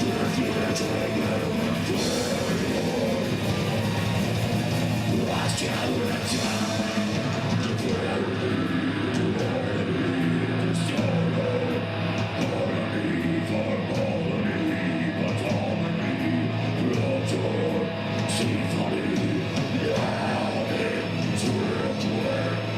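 Heavy rock music with distorted guitar, and at times a voice singing or shouting.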